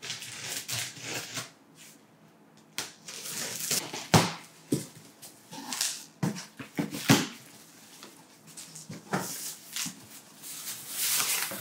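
Cardboard shipping boxes being opened: scissors cutting through packing tape and the cardboard flaps being pulled open and folded back, in irregular bursts of scraping and rustling with a few sharper knocks.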